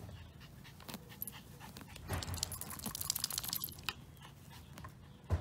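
Pomeranian panting, loudest for about two seconds in the middle as a fast crackly rasp, with a soft low thump near the end.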